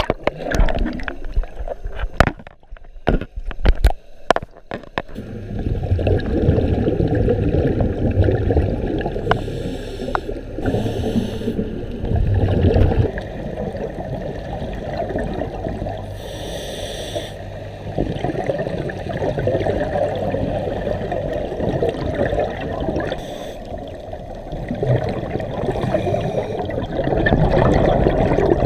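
Water splashing and sloshing against the camera for the first few seconds, then the muffled underwater rumble and gurgle of scuba divers breathing through their regulators, with exhaled bubbles and a few brief hisses.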